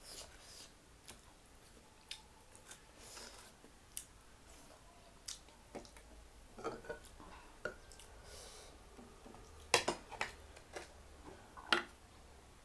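A person eating close to the microphone: chewing with scattered wet clicks and crackles, and a few sharper clicks, the loudest two about ten and twelve seconds in.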